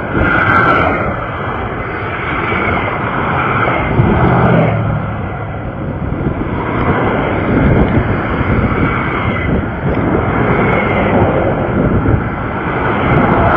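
Steady vehicle noise, a continuous rushing with no distinct events.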